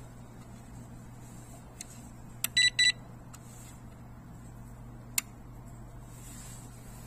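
Electronic coin acceptor's buzzer giving two short beeps about two and a half seconds in, right after a sharp click from one of its setting switches being flipped. Single small clicks come about a second before and over two seconds after, over a low steady hum.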